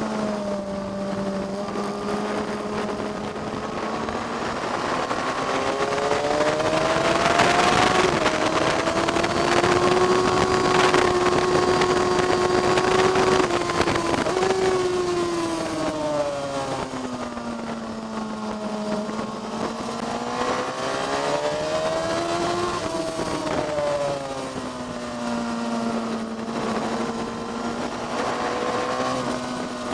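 Motorcycle engine heard onboard while lapping a race track. Its pitch climbs and falls smoothly under acceleration and braking for corners, holds high and steady for several seconds in the middle, and drops low twice later on, over a rushing noise.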